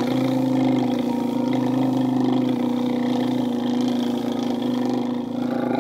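A man's voiced lip-and-tongue trill, one long rapid flutter held on a single steady low note as a vocal warm-up exercise, cutting off near the end.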